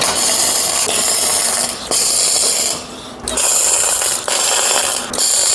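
Electric arc welder crackling through a series of short tack welds on steel, four runs of about one to two seconds each with brief pauses between.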